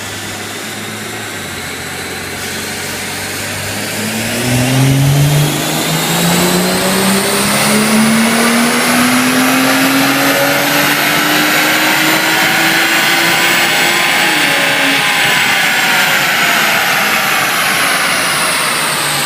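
Tuned BMW F10 with an aftermarket exhaust making a wide-open-throttle dyno pull. The engine note climbs steadily in pitch for about ten seconds, then drops suddenly as the throttle is closed, and the engine and rollers wind down with a falling whine.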